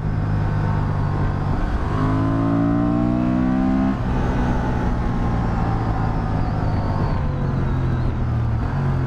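Honda Transalp 750's 755 cc parallel-twin engine under way. It pulls up through the revs for about two seconds, drops sharply about four seconds in at a clutchless upshift on the electronic quickshifter, then runs on steadily in the higher gear.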